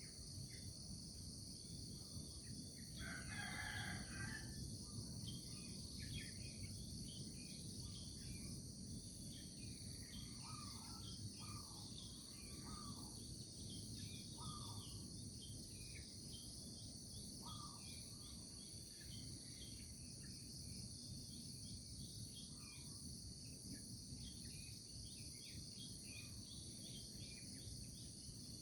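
A rooster crows once, about three seconds in, over a steady high-pitched insect chorus and scattered short bird chirps, all faint.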